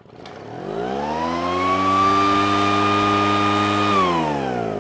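Poulan Pro backpack leaf blower's two-stroke engine revving up from low speed, holding high revs for a couple of seconds, then winding back down near the end. It runs and revs cleanly, back in working order after the fix.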